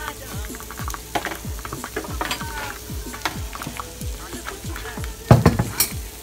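Pancake sizzling as it fries in a pan, with small utensil clicks and scrapes and one louder clatter about five seconds in. A steady, deep, repeating beat of background music runs underneath.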